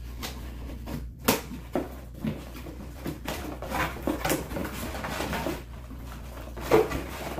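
Cardboard shipping box being opened by hand: scissors working at the packing tape and cardboard flaps scraping and rustling, with a sharp snap about a second in and a louder one near the end.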